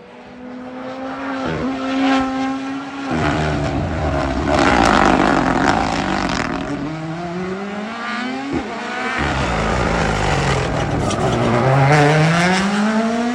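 Rally car driven flat out, its engine note climbing through the gears and dropping back on lifts and shifts, loudest as it comes past. A sharp crack from the exhaust about two-thirds of the way through, then it revs up again toward the end.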